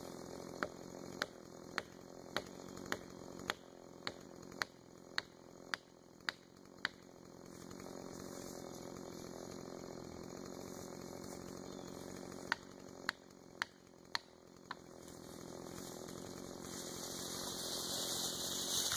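Sharp blows struck about twice a second, a tool driving into the felling cut of a small post oak, then after a pause four more strikes. Near the end a rising rush as the tree tips and falls.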